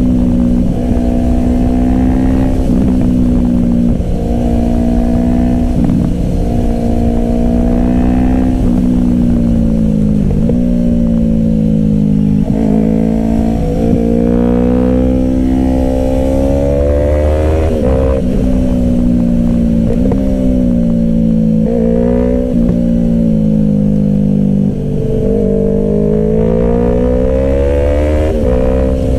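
Yamaha R3's parallel-twin engine ridden hard, its note climbing under throttle and dropping sharply at each gear change, with a few quick swoops and jumps in revs, over a steady low wind rumble.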